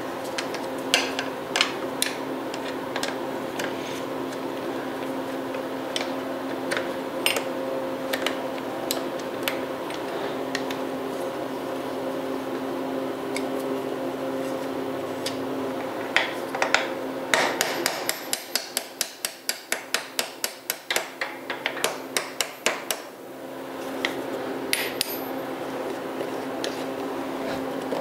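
Hand tools clicking and tapping on the metal mounting bolts of a mountain bike's rear shock as the bolts are undone, with a quick run of regular clicks, about three a second, lasting a few seconds past the middle. A steady low hum runs underneath and fades during that run.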